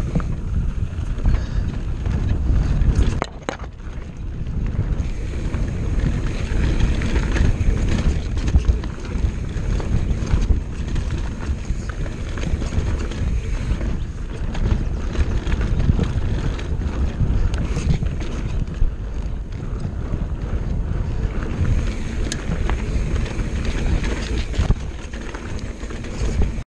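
Orbea Laufey hardtail mountain bike riding a rough dry dirt trail: wind buffeting the microphone over the constant rumble of tyres on the ground, with scattered clicks and knocks from the bike over bumps.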